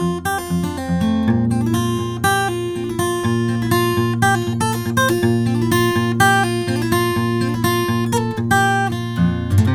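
Acoustic guitar played in a steady run of quick picked notes, with a low note coming in about a second in and ringing under them. It is close-miked with a small-diaphragm condenser microphone for a sound test.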